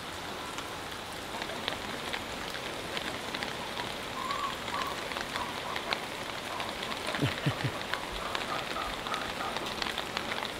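Steady rain falling and dripping onto surfaces, a dense patter of individual drops, with a few faint short chirps partway through.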